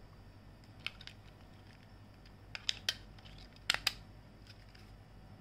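Small sharp plastic clicks from a remote control being fitted with batteries: the battery cover handled and two AA cells pressed into the compartment. A few isolated clicks, a pair about a second in, several around the middle, and the loudest pair just before four seconds.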